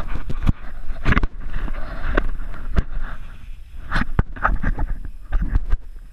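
Wind buffeting an action camera's microphone and skis scraping over snow, broken by many sharp knocks and bumps on the mic. It quietens near the end.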